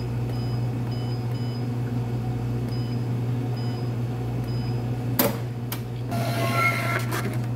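Short high beeps from a cafe POS touchscreen terminal as keys are tapped, about ten in the first few seconds, over a steady low electrical hum. About five seconds in there is a sharp click, then a brief whirring rasp with a few tones, followed by more clicks.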